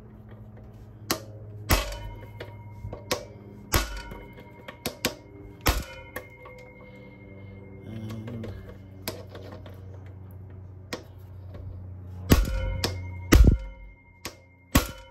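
Hand tools clinking and knocking against the metal parts of a motorcycle's front end: irregular sharp clicks and clanks, some ringing briefly, with a pair of louder knocks near the end.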